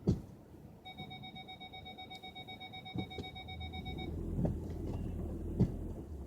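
A car's electronic warning chime beeps rapidly for about three seconds, then stops, and a low rumble rises. Sharp knocks come right at the start, again near the middle, and near the end.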